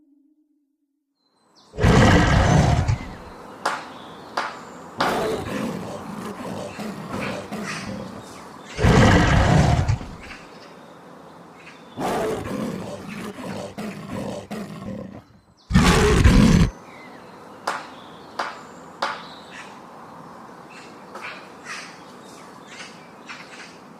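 Leopard calling in a series of loud, rough calls, each one to two seconds long, that start and stop abruptly, with short sharp clicks between them and after them.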